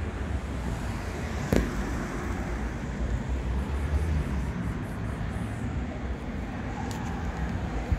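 City street traffic noise: a steady low rumble with a continuous hiss, broken by one sharp click about a second and a half in.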